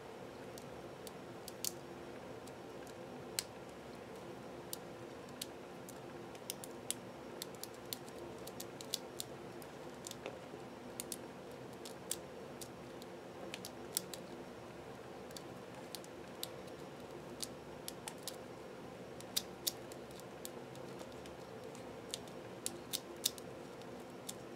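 Tiny 15 mm Maru Nano 3x3 puzzle cube being turned quickly by the fingertips in a solve: its small plastic layers make irregular sharp clicks, bunched more thickly near the end, over a faint steady hum.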